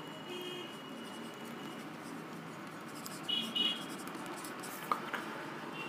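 Marker pen writing on a large paper wall chart: faint scratching strokes, with a brief high squeak about three seconds in and a small tap near the end.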